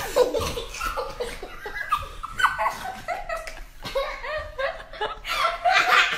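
High-pitched laughter in short repeated peals, growing stronger near the end.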